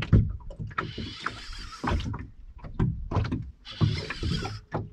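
Water slapping and knocking against a small boat's hull in irregular bursts, while a spinning reel is cranked to bring in a hooked fish.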